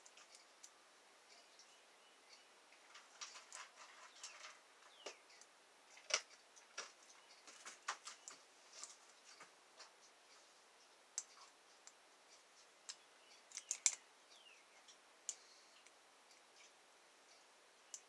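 Lock pick scraping and clicking against the pins inside the keyway of a six-pin Master Lock padlock core while it is held under a tension wrench: faint scattered ticks and scratches, with a few sharper clicks about a third of the way in and again about three-quarters through.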